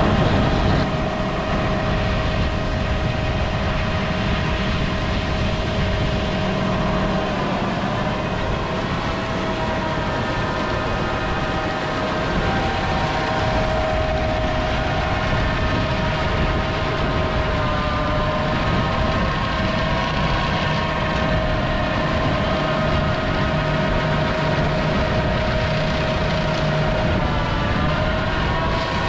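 Heavy harvest machinery running steadily, with a constant whine over the engine noise that shifts slightly in pitch a few times.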